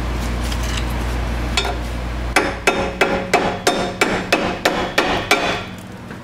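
A run of about ten sharp hammer strikes, roughly three a second, knocking the old rear drum-brake wheel cylinder loose from its backing plate.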